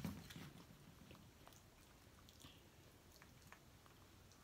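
Faint eating sounds at near silence: chewing, with scattered small clicks of plastic forks in foam takeout containers.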